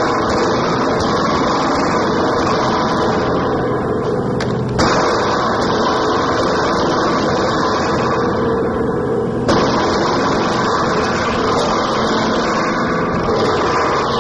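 Harsh noise music played live: a loud, dense wall of distorted electronic noise with no melody. The texture switches abruptly about five seconds in and again at about nine and a half seconds.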